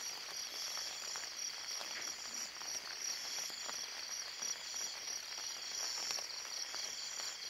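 Insect chorus in the field: a steady, rapidly pulsing high-pitched trilling, with faint scattered ticks underneath.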